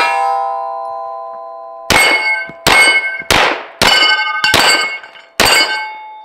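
Unsuppressed 9mm carbine shots hitting steel targets. Steel rings with a steady multi-tone ring for the first two seconds, then about seven shots follow at uneven spacing, each with a short metallic clang.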